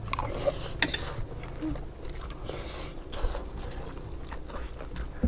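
Two people eating fried rice fast with metal spoons: chewing and mouth noises, with spoons scraping and clinking on metal trays, one sharp clink a little under a second in.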